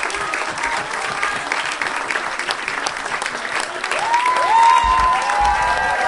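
Audience applauding, a dense patter of clapping hands, with a few voices calling out over it from about four seconds in.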